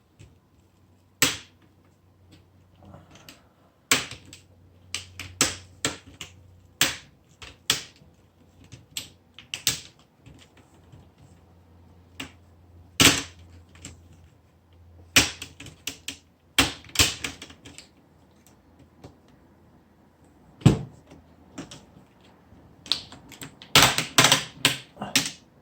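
Plastic snap clips of an Acer Aspire V3-572G laptop's screen bezel clicking loose one after another as the bezel is pried off: scattered sharp clicks, with a quicker run of clicks near the end.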